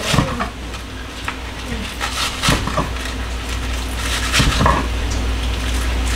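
Kitchen knife slicing green onions on a cutting board: irregular knocks of the blade striking the board, sometimes two or three close together, over a steady low hum.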